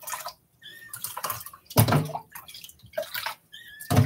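Water splashing and dripping in a stainless-steel kitchen sink as a kitten is washed by hand: irregular splashes, the biggest about two seconds in and again at the end.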